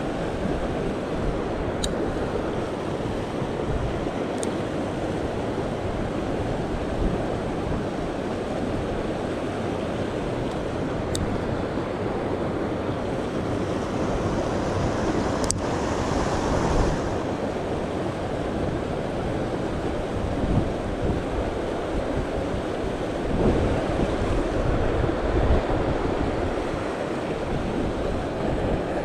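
Mountain river running steadily over rocks and rapids, with wind buffeting the microphone in low gusts. A few sharp clicks stand out.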